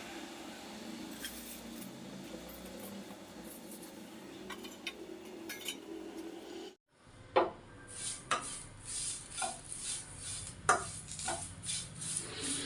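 Kitchen utensils clinking against a pan or dish: a steady low hum with a few faint taps, then after a cut about seven seconds in, a run of sharp metal clinks about a second apart.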